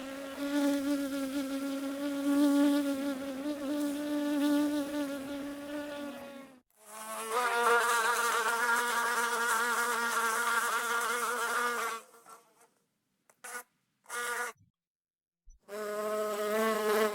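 Bee buzzing in flight: a steady droning buzz with a wavering pitch that cuts off about six and a half seconds in. A second, slightly lower buzz follows until about twelve seconds in, then two brief buzzes and a last buzz near the end.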